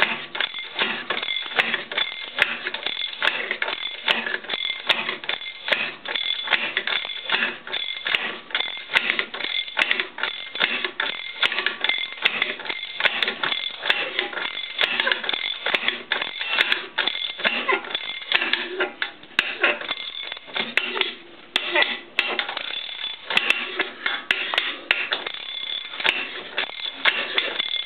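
A spanner turning a nut on an M16 threaded rod used as a homemade press, pulling a repair bushing into a bore: continuous irregular metallic clicking and creaking as the wrench is worked over and over.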